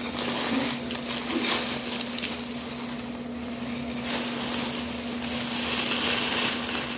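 Honey oats cereal flakes pouring from a clear plastic bag onto a ceramic dish: a continuous dry rattle of flakes with the crinkle of the plastic bag.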